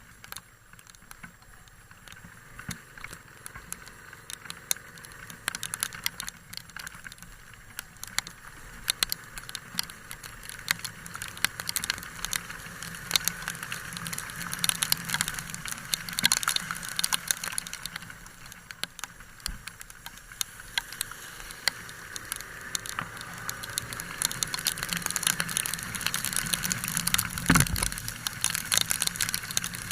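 Heavy rain pattering: a dense, irregular spatter of drop impacts that grows gradually louder.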